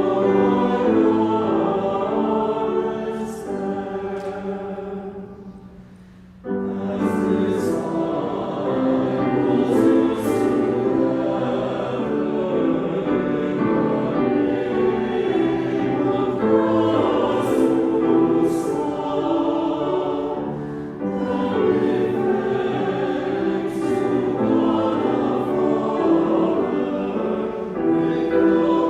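A choir singing sacred music. The sound fades away about five seconds in, then the singing resumes abruptly a moment later.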